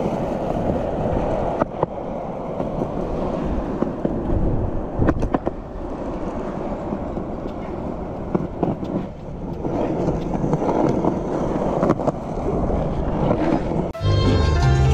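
Skateboard wheels rolling on the concrete of a skate park, a steady rough rumble broken by a few sharp clacks of the board. Music cuts in just before the end.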